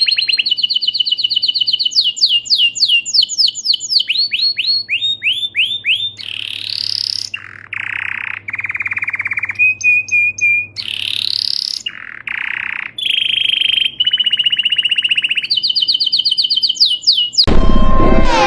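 A varied series of bird calls: fast runs of repeated high notes, downward-sliding whistled notes and buzzy held notes, changing abruptly every second or two. Near the end it gives way to music.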